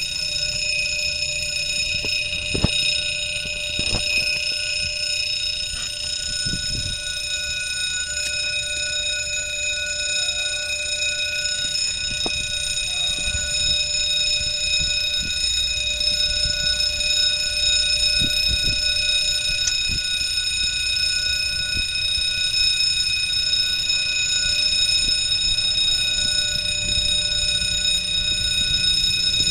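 Level-crossing warning bell ringing without a break as a steady cluster of high tones, the signal that a train is approaching the crossing. A low rumble runs underneath, with a few faint knocks.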